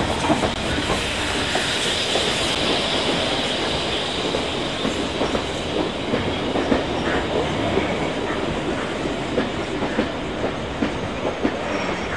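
Steam-hauled train running, heard from aboard: a steady rumble with frequent clicks and clatter of the wheels over rail joints and points.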